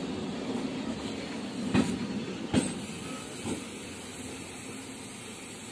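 MEMU electric multiple-unit train rolling past, its steady wheel rumble broken by sharp clacks over rail joints, two of them loud in the middle. The rumble fades as the last coach goes by.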